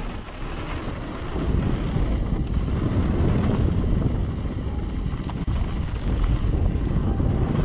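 Wind rushing over a chest-mounted GoPro's microphone during a fast downhill mountain-bike run, mixed with the rumble of the tyres and the bike over dirt and wooden trail features. It gets louder about a second and a half in.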